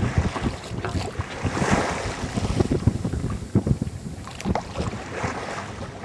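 Wind buffeting the microphone and waves washing against the hull of a sailboat under way. The rush of water swells briefly about two seconds in.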